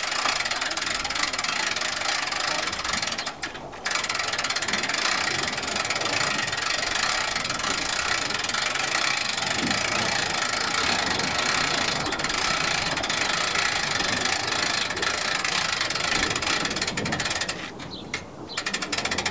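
Trailer tilt winch rattling steadily as it works the tilting bed and its wooden kiosk body up, stopping briefly a few seconds in and again near the end.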